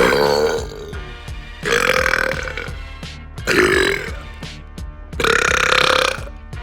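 A man burping loudly four times in a row, each belch a pitched burst half a second to a second long, the last the longest. Background music plays underneath.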